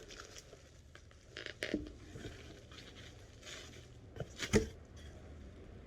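Packaging being handled during an unboxing: scattered short rustles and scrapes of paper and bags, with a sharp knock about four and a half seconds in.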